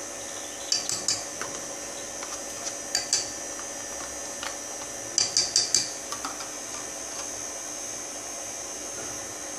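KitchenAid stand mixer running steadily with a constant motor whine while it mixes cake batter in its steel bowl. Light metallic clinks come in short groups about one, three and five seconds in, the last a quick run of four.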